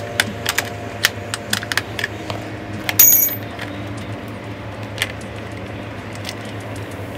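Light metallic clicks and taps of an Allen key working the bolts and plastic body panel of a motorcycle, with a sharp metal clink that rings briefly about three seconds in.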